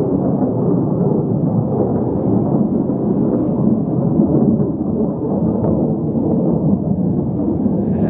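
Distant fighter jets' engines making a steady low rumble overhead.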